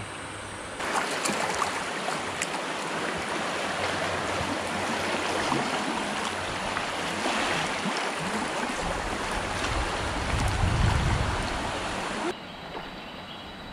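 Flowing river water, an even rushing hiss, with a deeper rumble swelling about ten seconds in.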